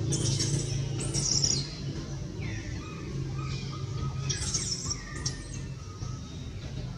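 Baby monkey crying: short, very high-pitched squeals and screams in several bursts, with a few lower gliding calls between them. A steady low hum runs underneath.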